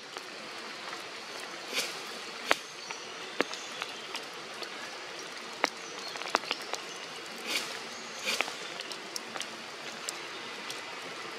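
Steady hiss of rain falling on forest foliage, with scattered sharp drips and ticks and a few brief soft rustles.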